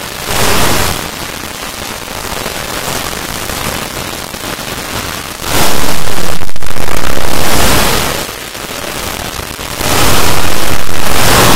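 A loud, distorted wall of noise from many video soundtracks playing on top of one another, with no single sound standing out. It swells to full, clipped loudness about five and a half seconds in for about two seconds, and again near the end.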